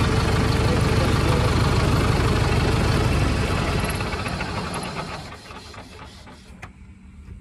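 Sonalika Tiger DI 65 tractor's common-rail diesel engine running steadily, then dying away over about two seconds from about three seconds in.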